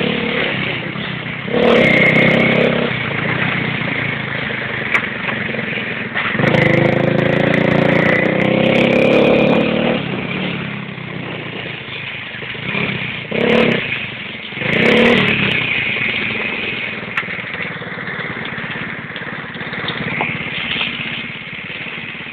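Motorcycle engines running and being revved several times, with loud revs rising and falling over the steady running; the longest rev lasts about three seconds, and two short blips come near the middle.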